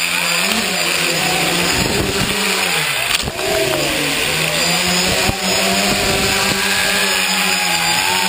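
Tricopter's electric motors and propellers buzzing, heard from the camera mounted on the craft, the pitch rising and falling as the throttle changes. Two brief knocks, about three and five seconds in, each with a short dip in the motor sound.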